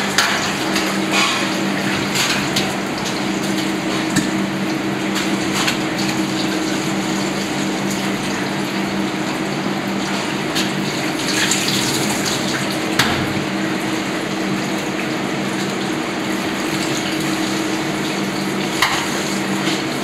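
Tap water running into a stainless steel sink as a whole parrotfish is rinsed and rubbed clean under it by hand, with a few short knocks against the sink, the loudest about 13 and 19 seconds in. A steady low hum sits underneath.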